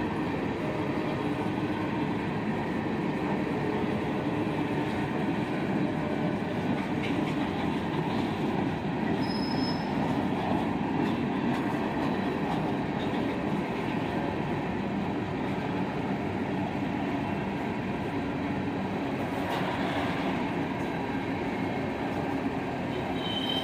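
Freight train of covered hopper cars rolling steadily past, steel wheels running on the rails, with a couple of brief high wheel squeals, one about halfway through and one near the end.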